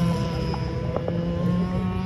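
Two-stroke gasoline engine of an RC boat running at a steady speed, with a couple of brief clicks about half a second and a second in.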